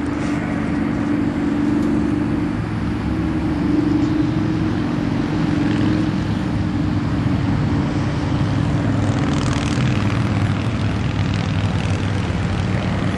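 A steady low mechanical drone at an unchanging pitch, like a motor or machinery running.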